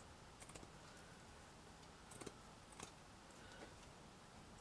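Sharp scissors snipping through crochet cotton thread: a few quiet, separate snips, two close together about half a second in, two more at about two seconds, and another shortly after.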